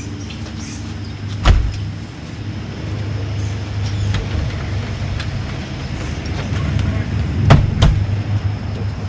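Sharp knocks from work at a door opening during the test fit of an exterior door: one about a second and a half in, then two in quick succession near the end, over a steady low rumble.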